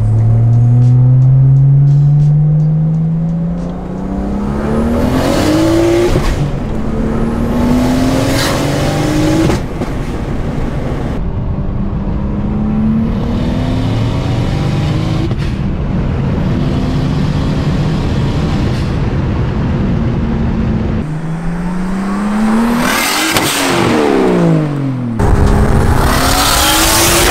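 Single-turbo BMW 335i's N54 straight-six, with a Precision 6266 turbo, straight-pipe exhaust and open wastegate dump, accelerating hard through the gears: the engine note rises in pitch in each gear and drops at each shift, with a burst of hiss around the shifts. Near the end the car goes past, its pitch falling as it passes.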